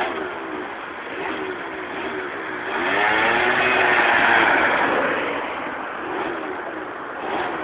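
Motor scooter engine revving, its pitch rising and falling again and again, louder for a couple of seconds in the middle.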